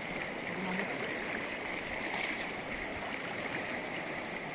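River water flowing steadily past the bank.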